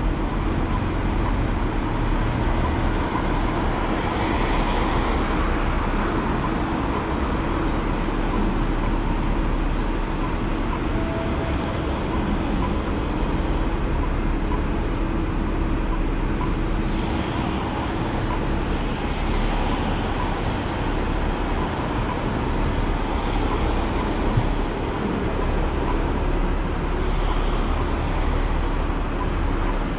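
Steady road traffic noise, with a low engine hum that stops about two-thirds of the way through.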